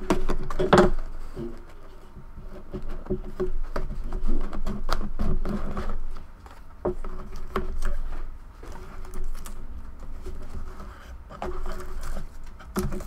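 A box cutter slitting the seal of a cardboard trading-card box, then an irregular run of scraping, tapping and rustling of cardboard and wrapper as the box is opened and a pack handled. The loudest scrape comes about a second in.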